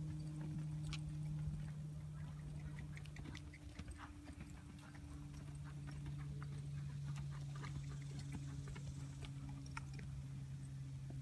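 A horse moving about, its hooves giving scattered, irregular knocks and clicks, over a steady low hum that drops slightly in pitch about five seconds in.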